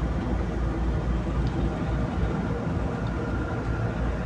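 Hand saw cutting across a sheesham hardwood strip, over a steady low hum.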